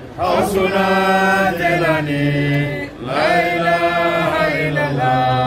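Voices chanting an Islamic devotional song together in long, drawn-out phrases, with a short breath break about three seconds in.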